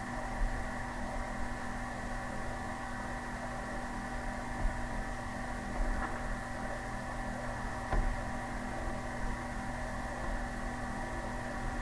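Steady low electrical hum with a few faint clicks scattered through it.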